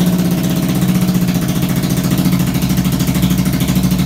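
Kawasaki EN500's parallel-twin engine idling steadily with a fast, even pulse, just after being started.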